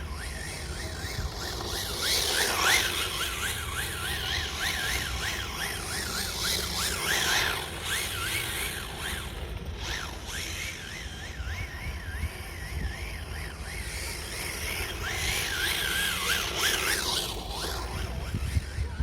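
Radio-controlled car's motor whining, its pitch rising and falling quickly as the throttle is worked, with a few louder swells of noise and a steady low rumble of wind on the microphone.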